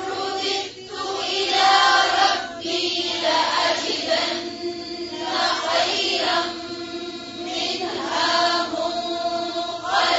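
Wordless background vocals: a soft, choir-like chant or hum in long held notes, with no recited words.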